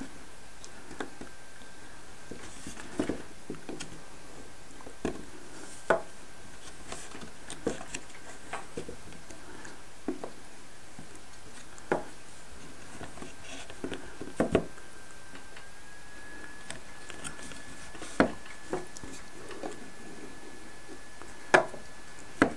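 Light knocks and taps of plywood model-boat kit parts and a small plastic glue bottle being handled on a tabletop, scattered every second or few, the loudest near the end.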